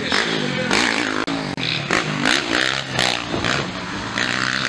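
Motocross bike engines revving hard, the pitch rising and falling repeatedly as the throttle is opened and closed through a jump and over rough dirt track.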